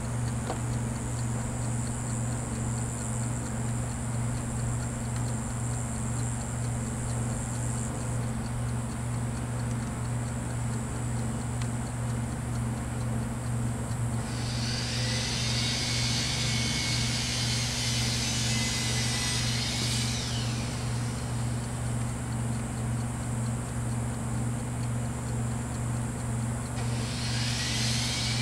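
A steady low hum throughout, with a loud high-pitched buzz that sets in about halfway through, lasts some six seconds and trails off in falling sweeps, then starts again near the end.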